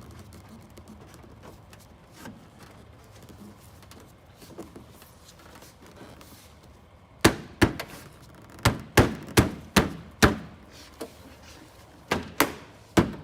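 Hand striking a plastic car bumper cover to snap it over its mounting brackets: about ten sharp knocks in two quick runs, starting about seven seconds in, after a few seconds of faint handling.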